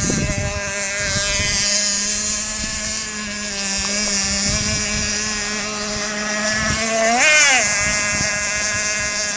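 Pro Boat Shockwave 36 RC boat's .32 nitro engine, running on 30% nitro fuel, screaming along at a steady high pitch; about seven seconds in the pitch sweeps sharply up and falls back as the boat comes close.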